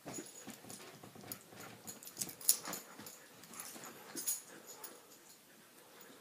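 Siberian husky puppy at rough play with a toy: scuffling and a run of sharp knocks and clicks, the loudest about two and a half seconds in.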